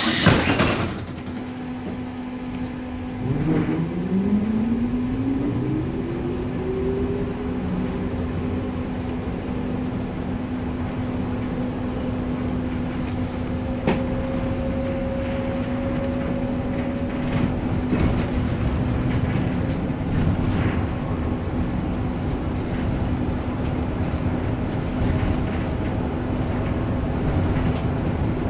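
Sofia T8K-503 tram pulling away: its traction motor whine rises steadily in pitch over several seconds as it gathers speed, then it runs on with a steady hum and occasional clicks. A short loud burst of noise at the very start.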